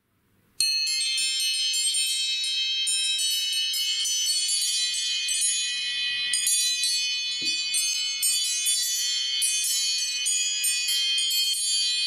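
An iPhone ringtone of high, chime-like bell tones starts about half a second in after a brief silence. It goes on as a fast, continuous shimmer of overlapping ringing notes.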